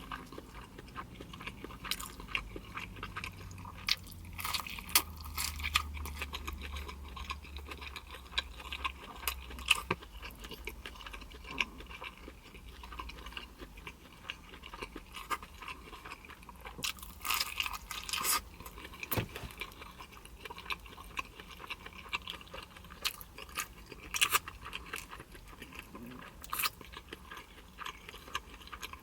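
Close-miked mouth sounds of a person chewing food, with irregular wet clicks and occasional crunches.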